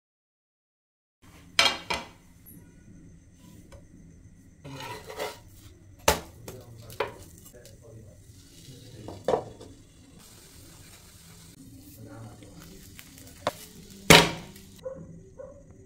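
Metal utensils knocking and clinking against a tawa and dishes, a sharp clink every second or few, with a light sizzle of cooking underneath. It starts about a second in, and the loudest knock comes near the end.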